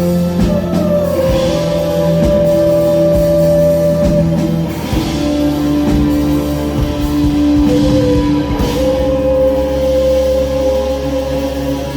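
Live rock band playing an instrumental passage: long held guitar notes that change pitch every few seconds over steady bass and light percussion.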